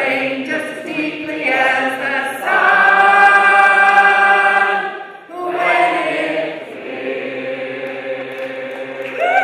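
A large group of voices singing together as a choir, holding a long chord, then after a short break another long held chord.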